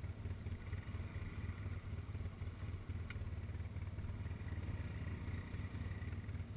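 ATV engine idling steadily with a low, even throb, heard close up from the machine itself.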